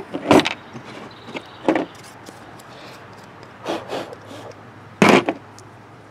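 Small plastic plumbing fittings and their plastic bag being handled on a workbench: four short knocks and scrapes, the loudest just after the start and about five seconds in.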